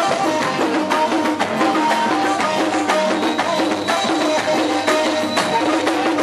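Live music with a darbuka (metal goblet drum) played fast by hand, and a melody of short held notes over the drumming.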